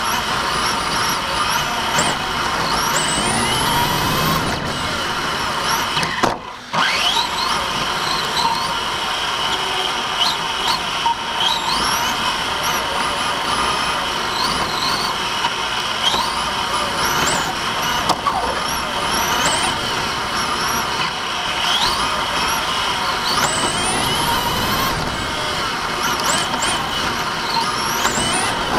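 Team Associated TC5 electric RC touring car heard from its own onboard camera: the electric motor whines, its pitch rising sharply over and over as it accelerates out of corners and dropping off the throttle, over steady tyre and drivetrain noise. The sound cuts out briefly about six seconds in.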